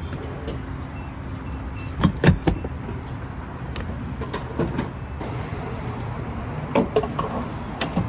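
Steady low rumble of a car, broken by a few sharp knocks and clunks: two about two seconds in and several more near the end. A thin high tone sounds for a few seconds in the middle.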